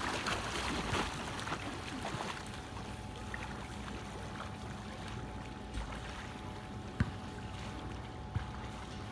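A swimmer's freestyle strokes and kicks splashing in a pool, loudest in the first couple of seconds as she pushes off near the microphone, then fainter as she swims away. A steady faint hum runs underneath, and a single sharp knock sounds about seven seconds in.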